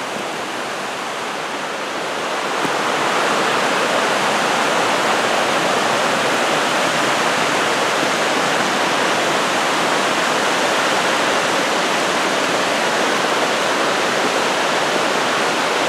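Rocky mountain creek rushing over boulders and small cascades: a steady rush of water that gets louder about two and a half seconds in.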